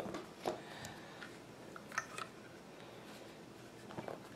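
A few light clicks and knocks from the parts of a taken-down Marlin 39A lever-action .22 rifle being handled on a workbench, the sharpest near the start and about two seconds in.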